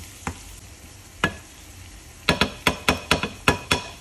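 A wooden spatula knocks against a nonstick frying pan of sautéing onions, peppers and tomato: two single knocks, then a quick run of about eight ringing taps in the second half, over a steady sizzle.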